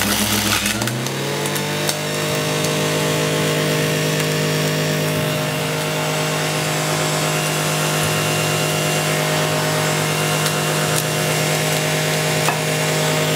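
Electric centrifugal juicer running as kale, parsley and coriander leaves are pushed down its feed chute: a steady motor hum over a rough shredding hiss. The motor's pitch rises about a second in, then holds steady.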